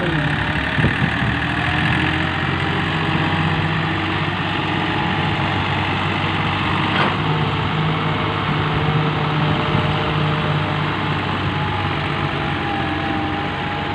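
Massey Ferguson tractor's diesel engine running steadily as it pulls a trolley loaded with sand.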